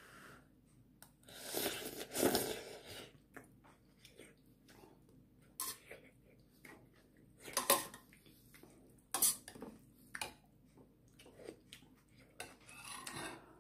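Stainless steel spoon and metal chopsticks clinking and scraping against a stainless steel pot while noodles are stirred and mixed, in scattered knocks with a few longer scraping stretches.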